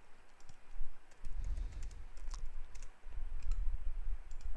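Computer keyboard typing, heard as scattered, irregular key clicks over a low rumble.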